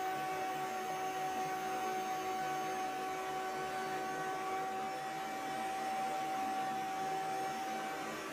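Table-mounted router with a flush trim bit running with a dust collection vacuum, trimming pallet wood to a plywood template: a steady machine noise with a steady whine that drops out near the end.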